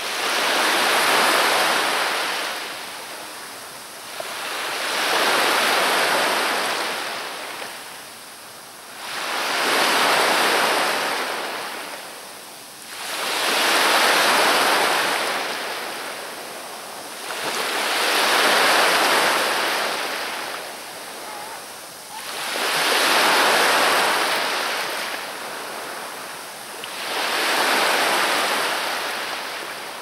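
Black Sea surf: waves breaking and washing back in a steady rhythm, one surge about every four seconds.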